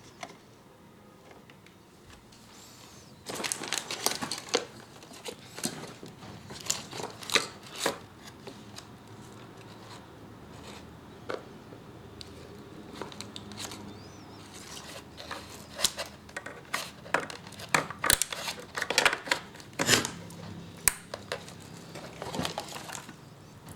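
Handling noises: scattered clicks, knocks and rustling of cables and connectors as audio signal leads are hooked up to a karaoke echo unit, coming thickest in the second half.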